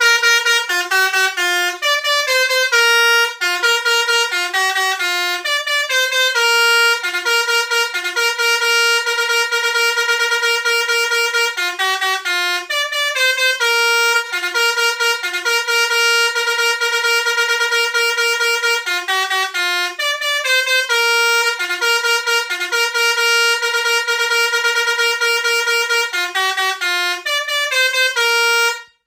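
Basuri-type telolet bus horn, a multi-tone musical horn, playing a fast melody of short notes that hop between a handful of pitches. It starts suddenly and cuts off sharply near the end.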